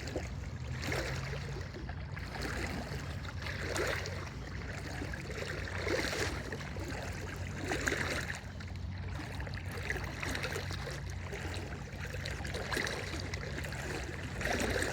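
Water swishing and sloshing around a person's legs as he wades through flowing floodwater in bib waders, swelling with each stride about every two seconds.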